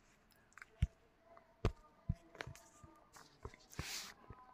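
Scattered light clicks and taps, about six of them spread across a few seconds, with a short breathy hiss about four seconds in.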